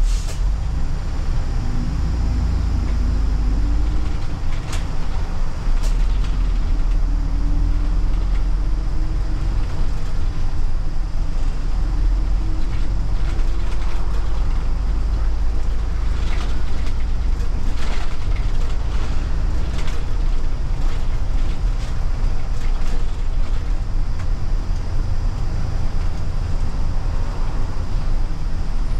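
City bus engine and drivetrain running as the bus drives along, heard from inside the front of the cabin: a steady low rumble, with a faint whine that rises several times as the bus picks up speed, and a few short clicks and rattles.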